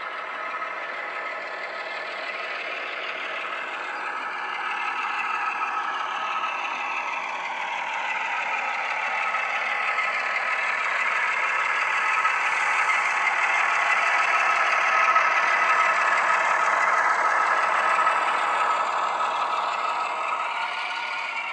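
Class 08 diesel shunter engine sound from an ESU LokSound decoder sound file, played through a model locomotive's small onboard speaker as the loco works a train of wagons, with almost no bass. It grows louder as the loco approaches, with pitch lines gliding under a steady hum, and eases off a little near the end.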